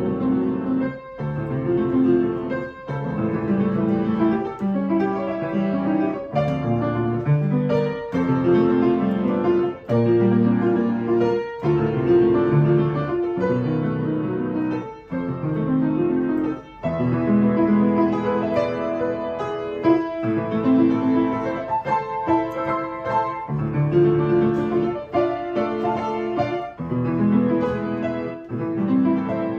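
Piano playing a continuous piece, chords over a bass line that moves to a new note about every second.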